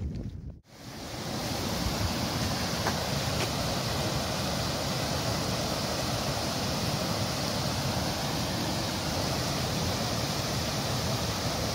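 Steady rushing sound of running water, beginning about half a second in.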